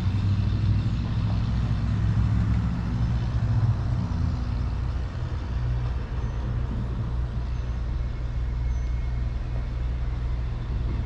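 Steady low outdoor background rumble with a faint hiss above it, a little stronger in the first four seconds.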